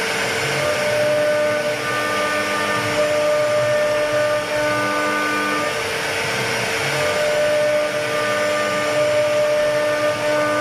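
CNC router spindle running and cutting a wooden door panel: a steady whine over rushing noise, with tones that step to new pitches every second or two as the cut goes on.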